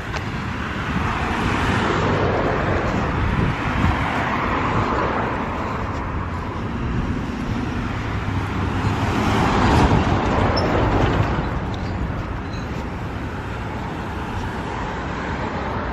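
Road traffic going by: the steady rush of passing cars, swelling loudest about ten seconds in.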